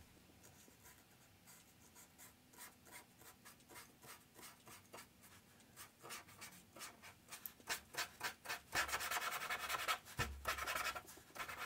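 Brush pen scratching and rubbing on paper in many quick short strokes, filling an area in solid black ink; faint at first, growing louder and denser about eight seconds in.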